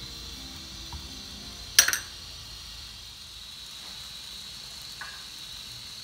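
Butter sizzling as it melts in a hot nonstick frying pan, a steady light hiss, with one sharp knock of the spatula against the pan about two seconds in.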